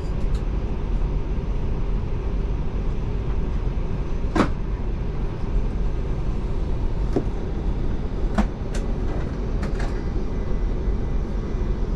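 Steady low hum and rush of an Airbus A340-600 cabin on the ground, its air-conditioning running, with a few sharp clicks and knocks. The loudest knock comes about four seconds in, and lighter ones follow near the end.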